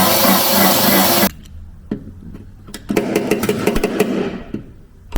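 Angle grinder working the sheet metal of a truck cab: a loud, steady grind that cuts off about a second in, then a few clicks and a rougher, choppier burst of grinding a couple of seconds later.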